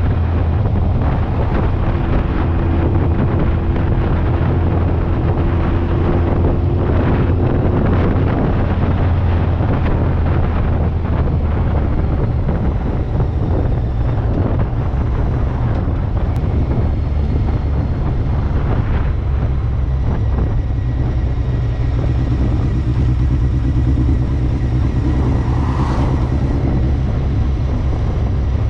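BMW K1200R Sport's inline-four engine running steadily while the motorcycle is ridden, mixed with constant wind rush on the microphone.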